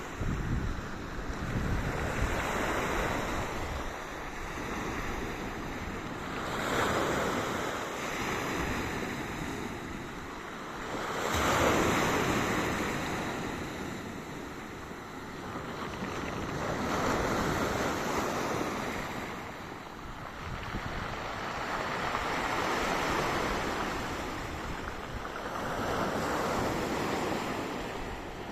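Sea waves breaking on a beach, the surf swelling and fading about every five seconds, with wind rumbling on the microphone.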